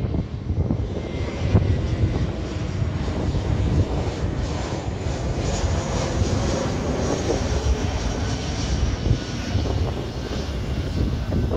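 Airbus A321 airliner on landing approach with its gear down, flying low overhead: its twin turbofan engines give a steady rumble with a faint high whine in the middle.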